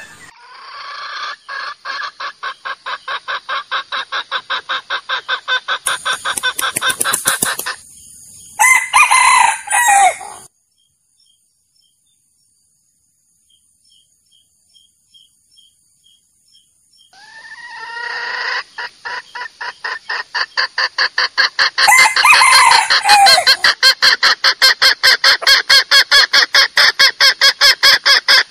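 Junglefowl lure calls: a hen's rapid, even clucking at about five a second, swelling louder, with a rooster crowing over it about three times. The calls stop for about six seconds in the middle, then the clucking starts up again.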